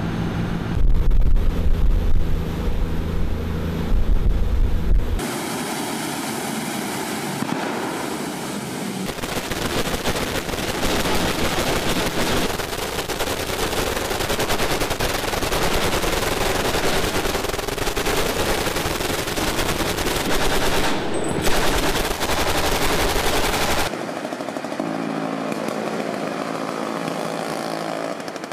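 Twin M240 7.62 mm machine guns on a boat mount firing long sustained bursts, a dense rapid rattle of shots. The first few seconds carry the boat's engine and the rush of water before the firing starts.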